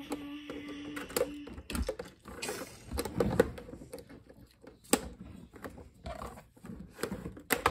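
Clear plastic packaging tray crinkling and clicking as a hand works a toy dinosaur figure loose, with a steady low tone that stops about a second and a half in.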